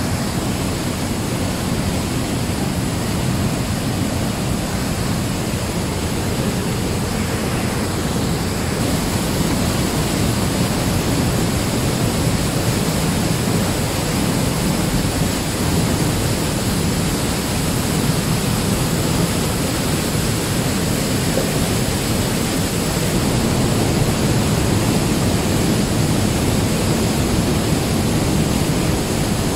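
Mountain stream cascading over boulders and small waterfalls in a narrow limestone gorge: a loud, steady roaring rush of water, heaviest in the low range and a little louder near the end.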